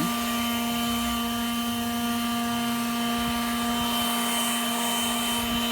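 WORX 20V Turbine cordless leaf blower running steadily on its low speed setting: an even motor whine over a rush of air.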